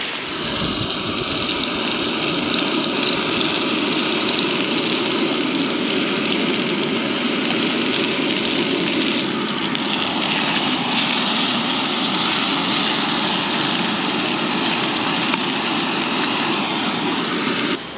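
Heavy rain pelting down in a dense, steady hiss that cuts off suddenly near the end.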